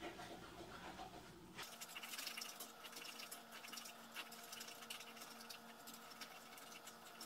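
Scrambled eggs faintly sizzling and crackling in a frying pan as they are stirred, the crackle setting in about a second and a half in. A low steady hum runs underneath.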